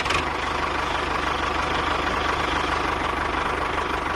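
A construction vehicle's engine idling steadily, with a fast, even pulse.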